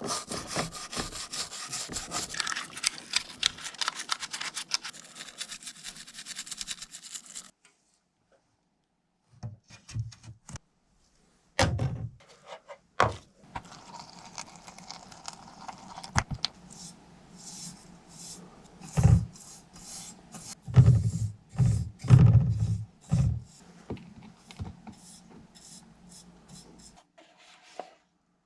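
Fast, steady hand rubbing or scraping on a small diecast model car body, as in sanding or scrubbing off old paint. It stops abruptly, and after a short silence come scattered knocks, thuds and clatter of small metal and plastic parts being handled and set down.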